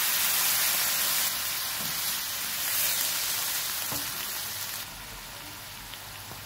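Browned beef mince in a frying pan sizzling loudly as water is poured in, the hiss easing to a quieter simmering bubble about five seconds in. A wooden spoon stirs and knocks lightly against the pan about four seconds in.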